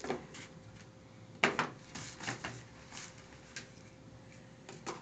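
Handling noises: a few short knocks and rustles as a plastic wall charger and a tablet are picked up from a cardboard box on a table, the sharpest knock about a second and a half in.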